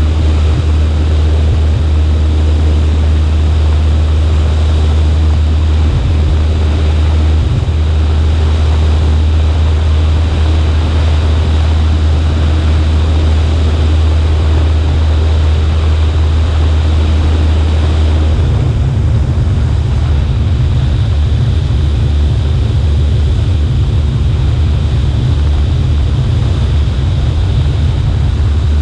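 Cessna 140A's piston engine and propeller droning steadily in flight. About two-thirds of the way through, the low part of the drone turns rougher and more uneven.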